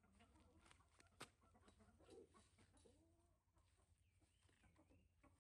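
Faint animal calls in the background, with one sharp click a little over a second in.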